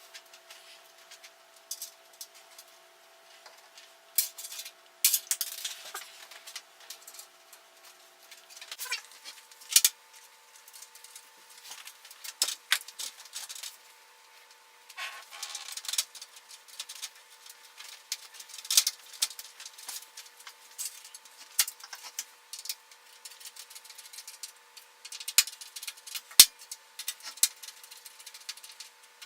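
Scattered sharp clicks and light clatter of screws, a screwdriver and plastic fan frames being handled as 120 mm case fans are screwed into the top of a PC case. Under them runs a faint steady hum that steps up in pitch about nine seconds in.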